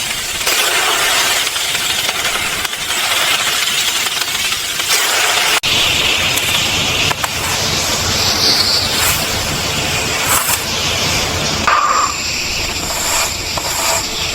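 Chicken 65 deep-frying in hot oil, a steady sizzle with a few short clicks and clinks.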